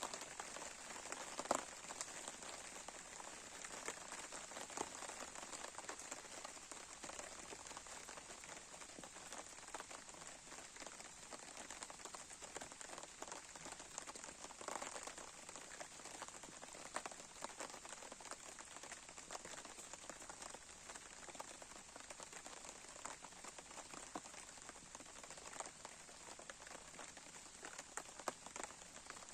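Campfire crackling: a steady hiss with many small irregular pops and snaps, the sharpest about one and a half seconds in.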